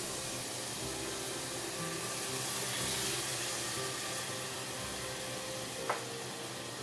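Crushed tomatoes sizzling in a hot saucepan of fried onions and spices, a steady hiss, with a single short knock near the end.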